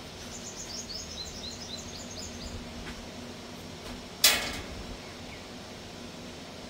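A bird chirps a quick run of short falling notes for about two seconds. About four seconds in, a single sharp metallic clank with a brief ring comes as the steel sheet template is handled. A steady low hum runs underneath.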